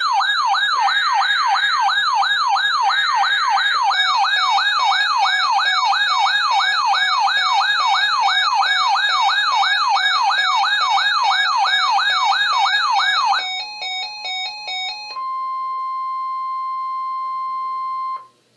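A warbling electronic alert siren sweeps up and down about two and a half times a second, with the rasping data bursts of the alert header faintly underneath near the start. About 13 seconds in it gives way to a short run of stepped electronic beeps. Then the steady 1050 Hz NOAA Weather Radio warning tone sounds for about three seconds and cuts off abruptly.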